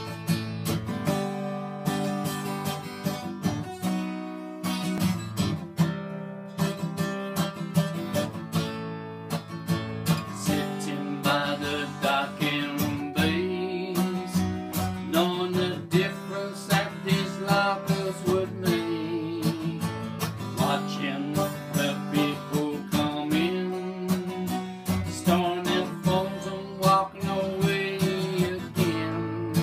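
Acoustic guitar strummed in steady chords, with a man's voice singing along over it from about ten seconds in.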